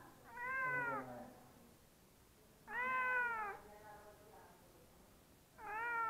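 Domestic cat meowing three times, about every two and a half seconds. Each meow rises and then falls in pitch, and the third begins near the end.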